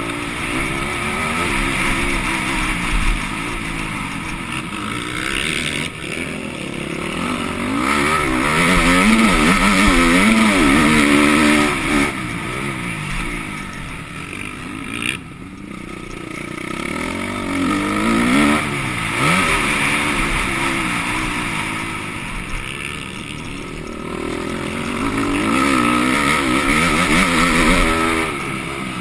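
MX2-class motocross bike engine heard from on board, revving hard and easing off again and again, its pitch climbing through each gear and falling as the throttle closes.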